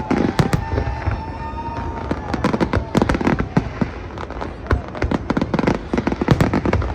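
Fireworks display: a rapid, irregular run of bangs and crackles from bursting shells, thickest about three seconds in and again near the end.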